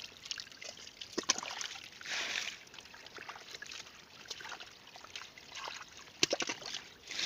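Shallow muddy water trickling and lapping, with a few brief sharp splashes or slaps, about a second in and again near the end.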